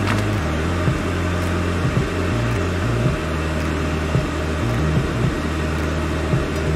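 Background music with a low bass line that changes note every second or so, over a loud steady hiss, with light clicks now and then.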